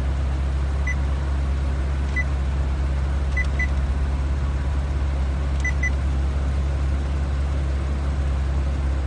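Short high touch-confirmation beeps from an aftermarket touchscreen car stereo as it is tapped: six in all, two of them in quick pairs. Under them, a steady low hum in the car's cabin.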